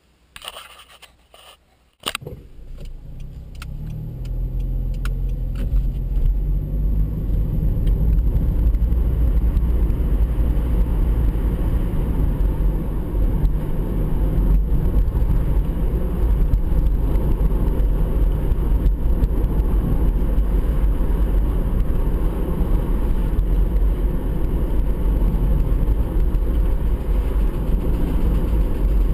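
Honda CR-Z's 1.5-litre four-cylinder engine and tyre noise heard inside the cabin as the car pulls away from a stop. A few light clicks come first, then about two seconds in the low engine rumble comes in suddenly and swells over several seconds as the car gathers speed, settling into a steady low drone of engine and road noise.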